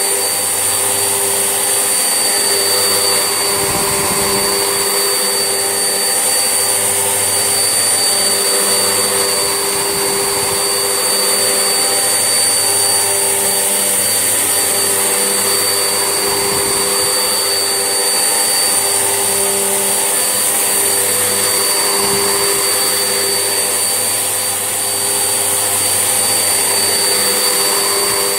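Vax Essentials vacuum cleaner running steadily with a constant high motor whine, with a few brief low bumps as it is pushed about.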